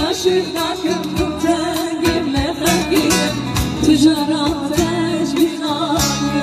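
A woman singing an ornamented, wavering melody into a microphone over loud amplified live band music with regular drum beats.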